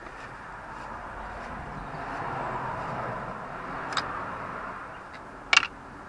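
Outdoor background rush that swells for a few seconds and fades again, with two short clicks of hand tools being handled and set down on the car's plastic cowl panel; the second click, near the end, is the louder.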